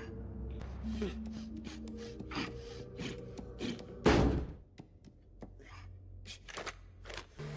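Soundtrack sound effects: a string of light wooden taps, creaks and rubs over a faint sustained music tone, with one sudden loud whoosh about four seconds in.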